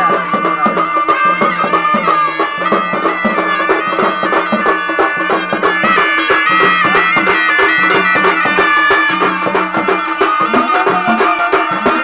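Traditional folk music: a wavering melody over a steady drone, with quick, even drum beats.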